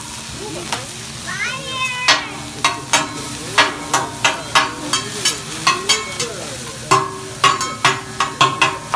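Food sizzling on a hibachi steel griddle while metal spatulas strike it in a quick run of ringing clacks, about two or three a second, starting about two seconds in. Just before the clacks begin, a brief high squeal rises in pitch.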